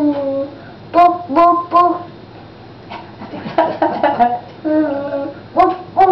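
A young child singing a short song in separate phrases, with pauses between them.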